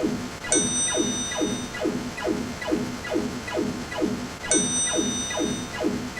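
Synthesized electronic sound effect on a loop: a short zap falling in pitch, repeating about twice a second, with a high ringing ding that comes in twice, about four seconds apart.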